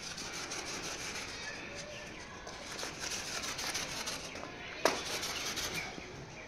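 Steady rustling, rubbing noise with one sharp click about five seconds in.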